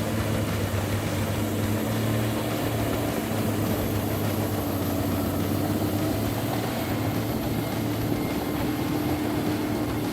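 Heavy vehicle engine running with a steady, unchanging drone.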